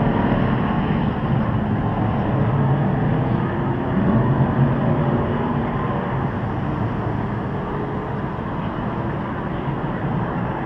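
V8 engines of NASCAR Cup and Busch series stock cars running on the circuit, a steady dense drone that slowly fades over the last few seconds.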